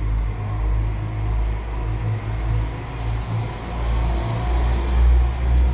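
Northern Class 195 diesel multiple unit pulling out under power, its underfloor diesel engines running hard with a deep, steady drone that swells about four seconds in.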